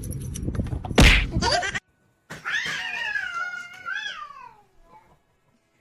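A sharp knock about a second in, then a cat meowing: one long, wavering call.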